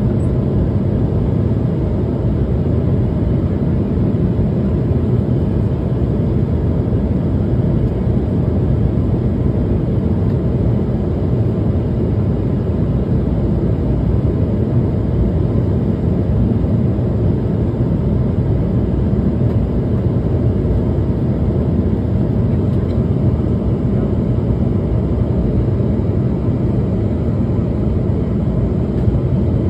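Steady cabin noise of an Embraer E190 airliner in flight: a constant low rumble of its wing-mounted turbofan engines and the airflow over the fuselage, with no change in pitch or level.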